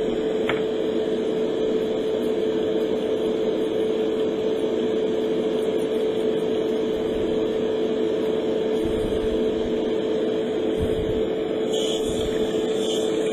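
Steady hum of a small electric motor running, holding one steady tone. Near the end a higher airbrush hiss joins in as spraying starts again after the paint was thinned.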